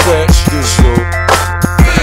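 Hip hop music with a steady beat and deep bass.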